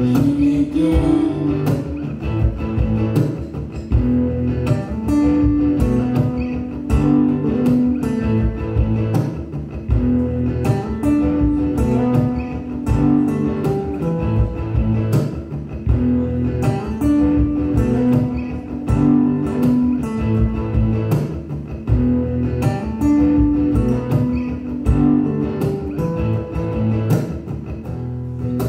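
Live instrumental music: an acoustic guitar strummed and picked over a steady percussive beat.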